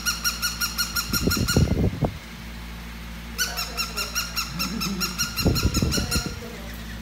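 Battery-powered plush toy dog sounding rapid, high-pitched electronic yips, about six a second, in two runs of about three seconds each with a short gap between. Under the end of each run come muffled rubbing and knocks as a husky puppy mouths and paws the toy.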